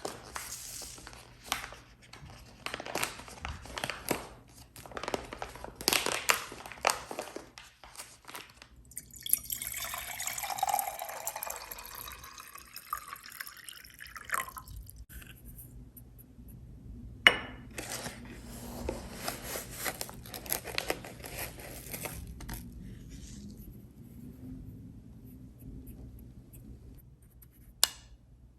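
Liquid poured into a glass container for about five seconds, its pitch rising as the vessel fills. Before and after the pour come clinks and handling clicks of glassware and kitchen items, with one sharp knock.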